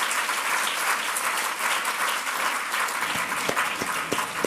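Audience applauding: a dense wash of clapping that thins to scattered single claps over the last second or so.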